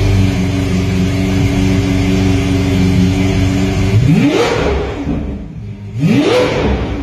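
Lamborghini Aventador S's V12 idling steadily through an iPE aftermarket exhaust, then blipped twice, about four and six seconds in, each rev climbing quickly and dropping back to idle.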